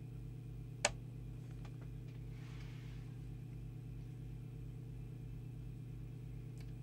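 A single sharp switch click about a second in as the 115 V step-down auto-transformer feeding a 1966 Heathkit valve power supply is switched on. Under it runs a steady mains hum with a slight regular pulsing.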